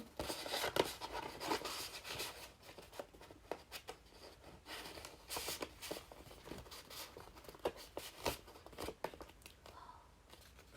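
Paper packaging rustling and crinkling as a package is opened by hand, with irregular rustles and sharp little clicks and crackles throughout.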